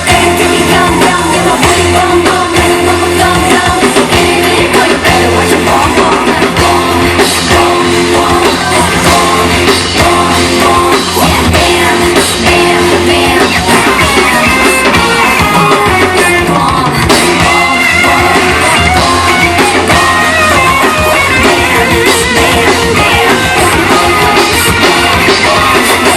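Loud pop music with a driving drum beat and singing, played over a stage sound system.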